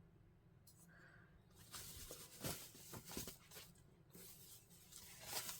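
Faint rustling and crinkling of packaging being handled, in short irregular bursts starting about two seconds in, after a near-silent start.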